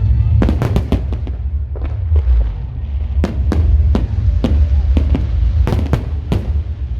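Fireworks and firecrackers going off: a string of sharp, irregular bangs, some in quick clusters, over a continuous low rumble.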